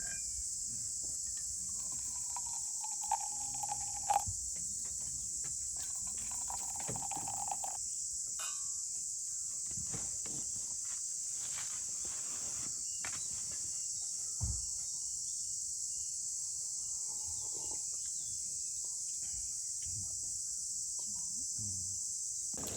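Steady high-pitched chorus of insects chirring, such as crickets, with a few faint short knocks and sounds under it.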